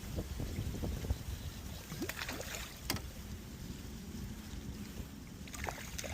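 Strong wind buffeting the microphone: a steady low rumble, with a few faint clicks about two, three and six seconds in.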